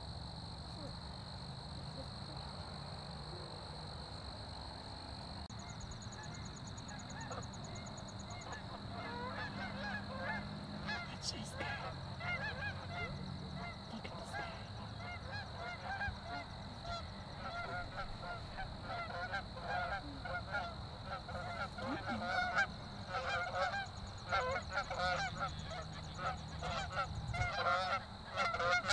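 A flock of Canada geese honking in flight, the calls beginning about six seconds in and growing louder and more frequent toward the end. A steady high insect drone runs underneath.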